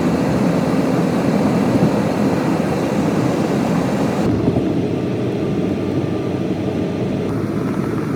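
Steady rushing road and wind noise of a car on the move. It thins slightly about four seconds in.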